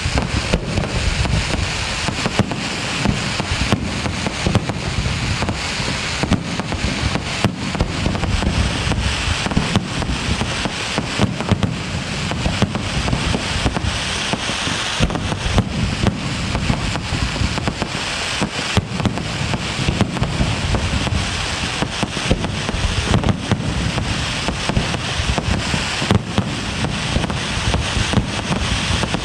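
Aerial fireworks display, a castillo: a dense, unbroken barrage of bangs and crackling shells going off in quick succession.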